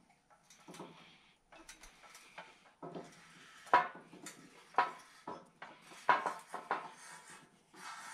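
Hand tap in a bar tap wrench being fitted and turned to cut threads in a 3/16-inch steel frame: a string of irregular metal clicks and clinks, the loudest a little under four seconds in.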